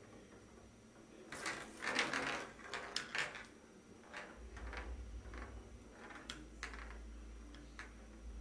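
Ping pong ball knocking, rolling and bouncing on the bathtub floor as a kitten bats it with its paws, a quick cluster of taps a second or two in and a few single taps later. A low rumble comes in about halfway through.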